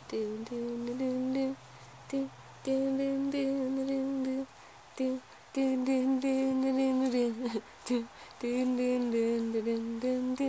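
A person humming a slow tune in held notes of a second or two, stepping in pitch, with short breaks between phrases. Faint rustling runs through it.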